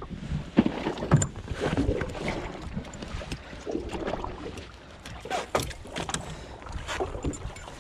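Small fishing boat on open water: water lapping and rumbling against the hull, with wind on the microphone and scattered sharp knocks and clicks, densest about five to six seconds in.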